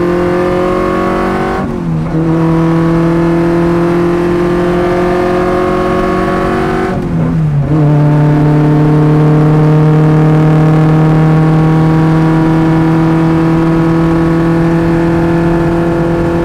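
Fiat Abarth 1000's rear-mounted four-cylinder engine pulling hard on track, heard from inside the car, its note climbing slowly in pitch. It is broken twice, about two and seven seconds in, by gear changes, each a brief dip with a drop in pitch.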